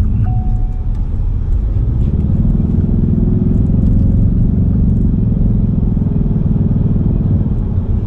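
Car engine and road noise heard from inside the cabin while driving, the engine growing stronger about two seconds in as the car picks up speed. A brief beep sounds near the start.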